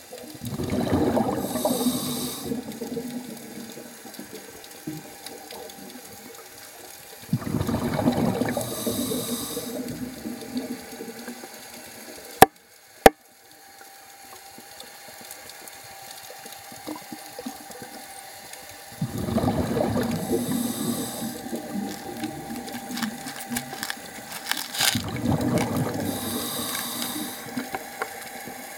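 Underwater scuba breathing through a regulator: four rounds of exhaled bubbles, each lasting a few seconds with a hiss partway through, spaced several seconds apart. Two sharp clicks near the middle.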